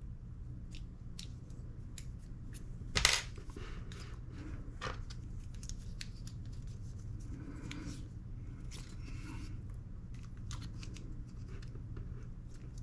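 Small airsoft rifle parts being fitted back together by hand: faint scattered clicks and scrapes, with one sharper click about three seconds in, over a steady low hum.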